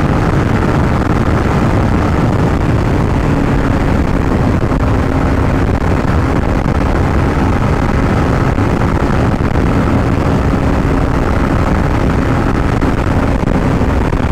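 Yamaha MT-15's 155 cc single-cylinder engine running steadily at cruising speed, under a heavy, steady rush of wind on the microphone.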